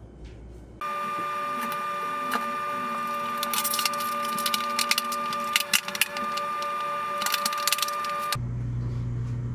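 Clacks and clicks of plastic bathroom floor tiles being handled and fitted onto a tiled floor, in clusters, over a steady hum.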